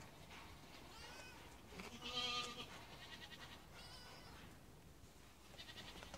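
A young goat kid bleats once, loudly and briefly, about two seconds in. Fainter, higher-pitched calls come around the first and fourth seconds.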